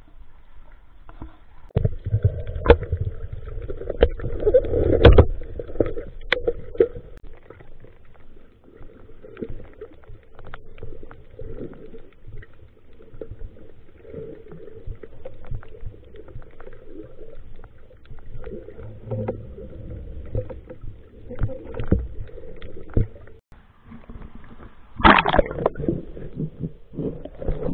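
Water sloshing and gurgling around a swimmer entering and moving in the sea, with irregular knocks and a louder splashy burst near the end.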